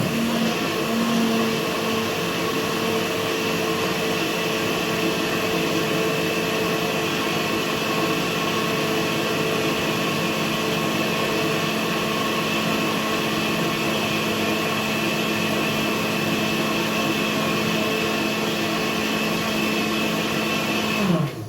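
Electric blender motor running steadily at one speed, pureeing thick butternut squash soup, then winding down in pitch as it is switched off near the end.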